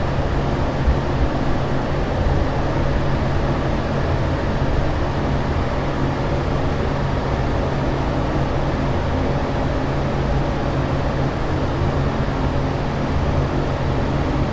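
Air extractor fan in a public toilet running steadily: an even rush of air over a low, steady hum.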